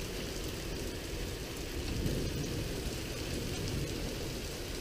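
Heavy thunderstorm rain falling steadily in big drops, with a low rumble underneath that swells slightly about two seconds in.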